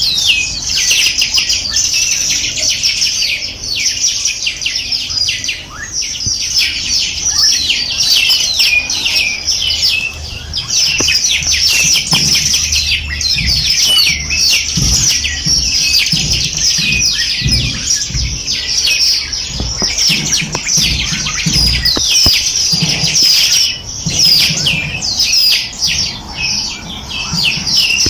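Many small birds chirping and twittering at once, a dense unbroken chorus of short high calls. There are a few low thuds around the middle.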